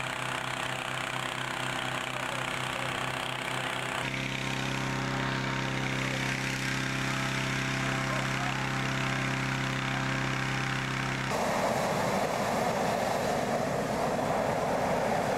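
Petrol-engined hot-air balloon inflator fan running steadily during cold inflation. About two thirds of the way through, the balloon's propane burner starts firing, a louder rushing blast over the fan: the hot-inflation stage with the basket still on its side.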